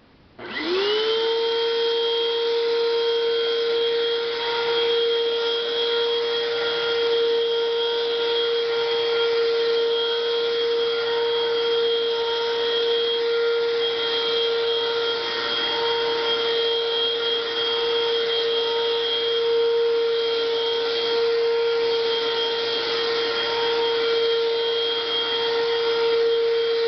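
Eureka Superlite stick vacuum switched on about half a second in: its motor spins up with a quickly rising whine, then runs steadily on the carpet setting with the brush roll turning.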